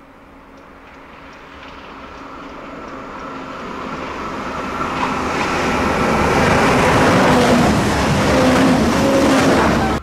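Diesel passenger multiple-unit train approaching head-on, growing steadily louder with a steady engine hum over wheel and rail noise. It breaks off abruptly near the end.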